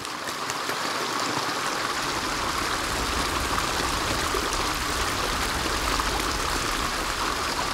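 Steady rushing, hissing water noise of the sea, a cartoon sound effect that sets in suddenly as the sun rises out of the water.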